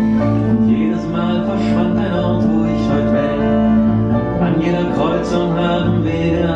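Recorded ballad played back: acoustic guitar with a voice singing over it.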